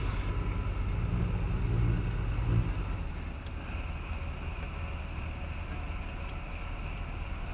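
Engine of a small fishing boat running steadily under way, with some wind noise on the microphone. The engine sound eases off a little about two and a half seconds in.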